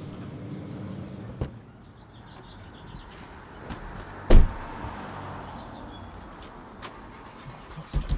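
Car door handling on a 1999 Toyota Camry: a knock about a second and a half in, then a heavy thud of the door shutting about four seconds in, followed by faint clicks and jingling of keys at the ignition.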